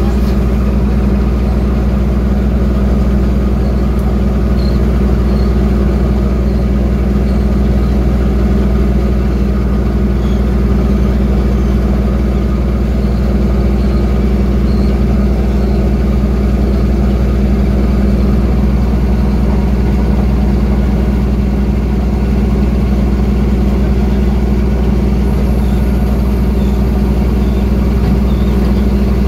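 Fishing trawler's engine running, a loud steady low drone with a constant hum that does not change pitch.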